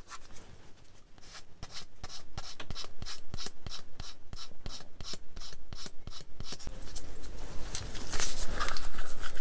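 Sanding stick rubbed back and forth on a small plastic model part in steady short strokes, about four a second, sanding off the nub left by the sprue gate. Near the end come louder rubbing and handling noises.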